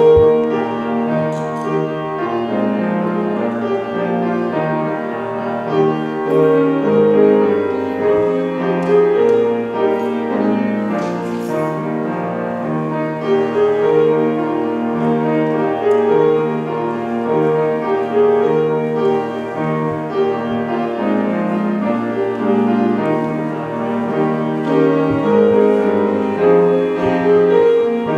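Instrumental piano music in a classical style, playing continuously with no voices.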